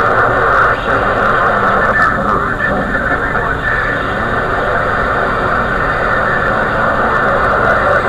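Dynamike radio receiving a crowded skip channel: steady loud static with garbled, overlapping distant signals. The reception is messy.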